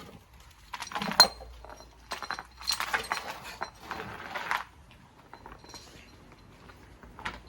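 Heavy metal chain clinking and rattling in a few short bursts as the dog wearing it moves, with one sharp clank about a second in.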